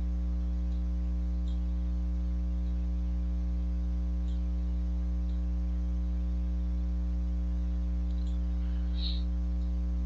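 Steady electrical mains hum on the recording: a constant low hum with a buzzy ladder of overtones, unchanging in level.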